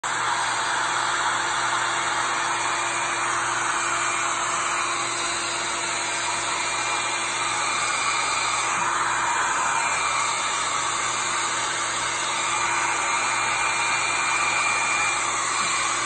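Small handheld hair dryer running steadily, blowing wet acrylic paint across a canvas: a continuous blowing noise with a constant motor hum.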